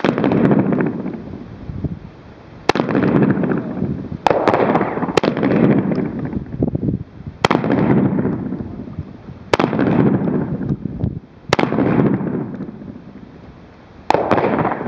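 Combat shotgun fired about eight times in steady succession, one to two and a half seconds between shots. Each loud blast is followed by a long rolling echo that fades out before the next.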